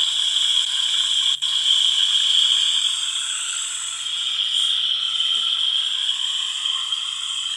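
A chorus of frogs calling steadily, with one short click about a second and a half in.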